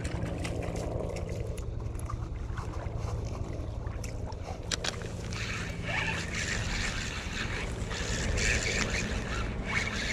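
Spinning reel being cranked steadily to retrieve a lure, over a low rumble of wind on the microphone, with a couple of sharp clicks partway through.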